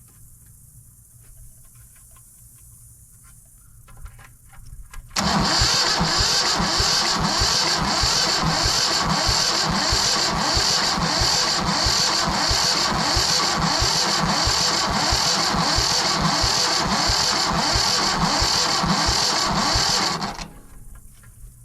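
Yanmar 1500 tractor's diesel engine being cranked over by the starter for about fifteen seconds with an even, rhythmic beat, then cut off without firing. It is cranked with an injector line cracked open to bleed air from the fuel system; the fuel reaching the injector comes with little pressure.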